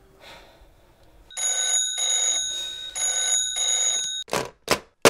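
Bell rotary-dial desk telephone's bell ringing twice, each ring about a second and a half of rapid metallic rattle with a break between. Two short sharp clunks follow near the end.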